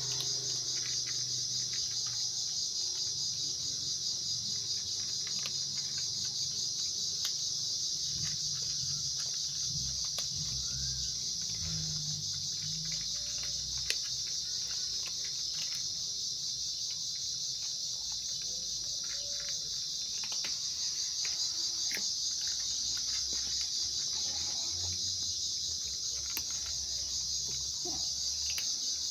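Steady, high-pitched chorus of insects that never lets up, with faint scattered clicks and a low hum beneath.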